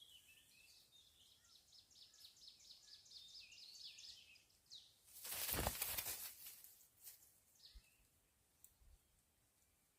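Small birds chirping in quick high-pitched runs, faint. A brief loud whoosh comes about five and a half seconds in, and after it only a few scattered chirps.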